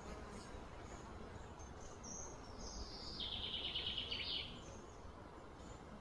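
A bird call over steady outdoor background noise. About two seconds in, a high note slides down, then runs into a rapid trill that lasts about a second and stops.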